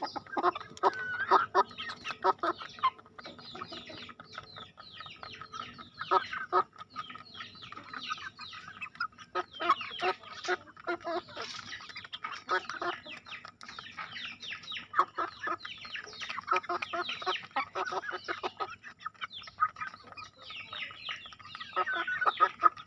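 Young Bangkok gamefowl (Thai fighting chickens, about three months old) pecking feed off paving stones: bursts of rapid clicks of beaks on stone, with short gaps between them, mixed with soft chicken calls.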